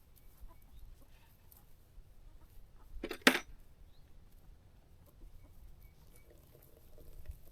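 Chickens moving about, with one short, loud burst of noise lasting under half a second about three seconds in.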